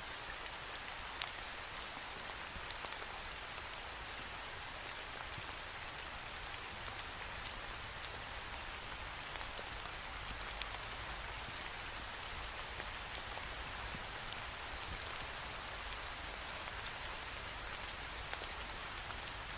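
Steady rain falling against a window pane, a constant hiss with many small scattered drop ticks.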